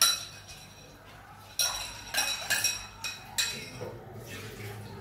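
A utensil clinking against a dish as pieces of fruit jelly are cut and moved: about six sharp, ringing clinks. The loudest comes right at the start, and a quick run of them follows from about a second and a half in.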